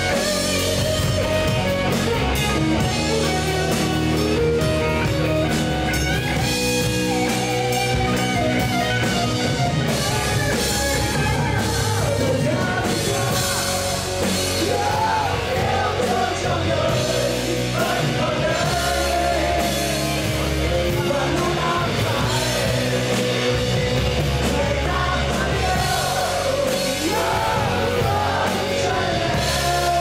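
Live rock band playing loud, with distorted electric guitar, bass and a full drum kit. A singer's vocal comes to the front from about halfway through.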